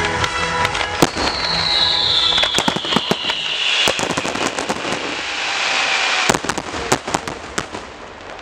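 Aerial fireworks display: a dense run of sharp bangs and crackle from bursting shells, with a long falling whistle through the middle. The bangs thin out near the end.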